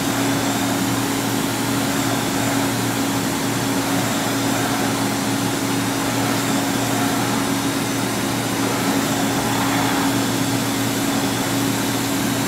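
LK Machinery TC-1200 vertical CNC drill-tap center running a G83 peck-drilling cycle: a steady machine hum with a strong even tone from the spindle and axis drives. The machine is running much slower than it ordinarily would because of its unstable footing.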